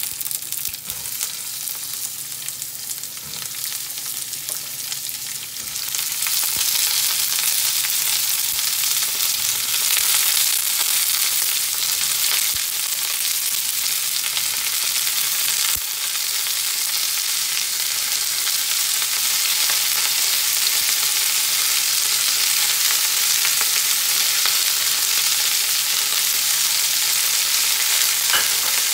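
Sliced ivy gourd (tindora) sizzling in hot coconut oil over a mustard-seed, lentil and curry-leaf tempering as the pieces are tipped into the pan and stirred. The sizzle gets louder about six seconds in, then holds steady.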